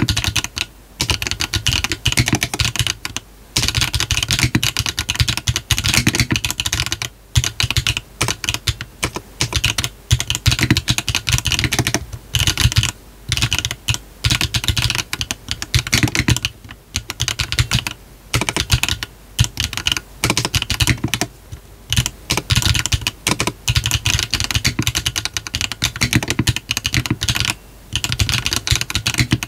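Continuous typing on a GDK DK1-TKL custom mechanical keyboard with a brass bottom, HMX 幻紫 switches, a 1.6 mm PCB, no foam and hard wide gaskets, under PBT keycaps: fast runs of sharp key clacks broken by brief pauses.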